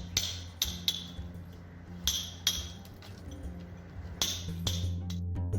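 Metal hand tool striking brick or stone masonry: sharp, ringing clinks, mostly in pairs about half a second apart, with pauses between. Music begins near the end.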